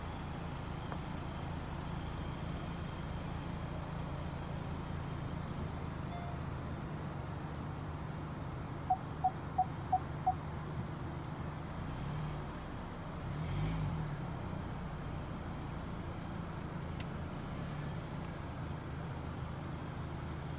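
Outdoor ambience: a steady low hum with faint insects chirring high above it. About nine seconds in come five short, evenly spaced high notes, and a few seconds later the low hum briefly swells.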